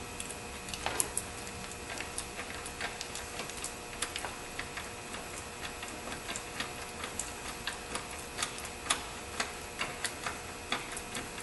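Irregular metallic clicking of a ratchet wrench and tools on the power steering pump bolts as they are loosened and backed out, roughly two to four clicks a second with uneven pauses.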